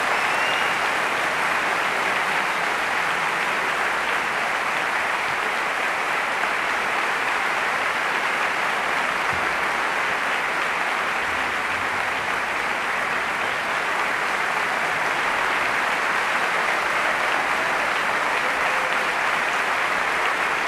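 Audience applauding, a dense, even clapping that holds at a steady level.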